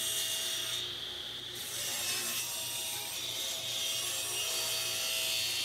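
Table saw running and cutting through a wooden workpiece: a steady sawing hiss over a constant motor hum.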